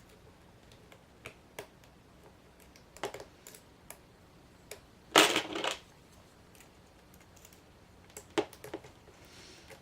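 Metal pick and tension wrench working in the keyway of an ACE rekeyable padlock with serrated spool pins: small irregular clicks and scrapes, with a louder cluster of clicking and scraping about five seconds in and a few sharper clicks a little after eight seconds.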